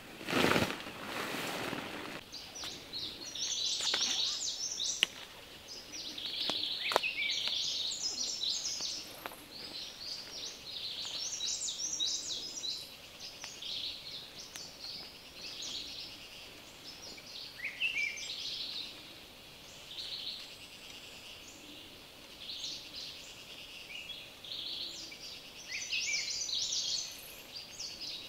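Many birds chirping and trilling in a forest, short high calls overlapping. A loud rustle of a tarp being shaken out comes right at the start, and a couple of sharp clicks fall a few seconds in.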